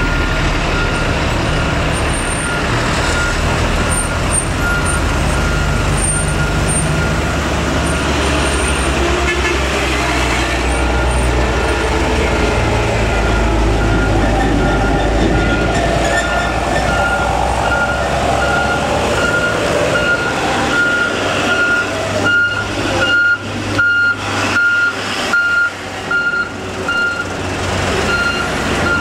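Heavy diesel trucks running in slow, queued traffic, with a low engine rumble. A vehicle's reversing alarm beeps repeatedly at one pitch throughout and grows louder in the second half.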